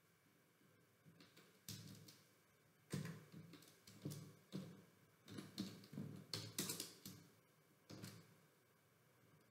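Faint, irregular clicks and knocks of a computer mouse and desk handling, starting a couple of seconds in.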